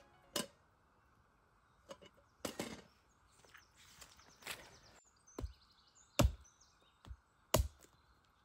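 Wood being chopped: about eight irregular single knocks, the two heaviest and deepest blows near the end.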